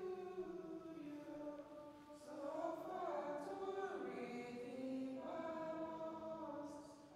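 A choir singing a slow entrance hymn in held notes, dipping briefly between phrases.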